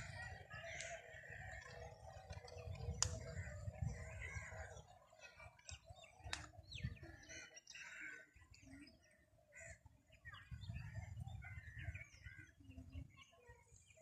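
Birds calling and chirping in short, scattered calls, over a low rumble of wind gusting on the microphone that swells twice.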